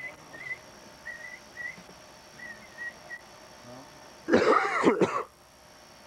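A person coughing, a loud burst of a few coughs lasting about a second, about four seconds in. Before it, faint short chirps repeat about twice a second.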